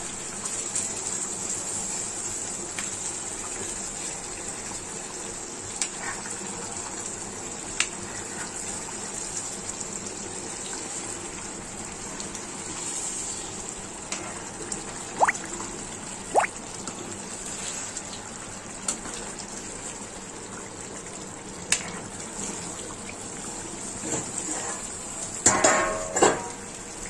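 Thick chicken curry bubbling and sizzling steadily in an iron kadai, with a few sharp clicks scattered through. Near the end, a short run of louder clatter and scraping as the metal ladle stirs in the pan.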